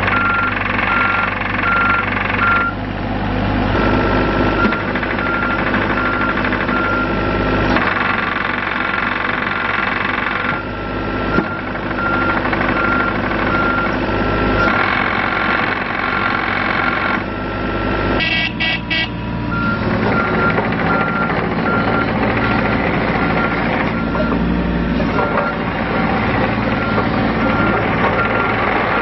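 A John Deere 27D mini excavator's diesel engine runs steadily while its motion alarm beeps rapidly. The beeping breaks off briefly a few times, and the engine note shifts as the machine works. A quick rattle of knocks comes about two-thirds of the way through.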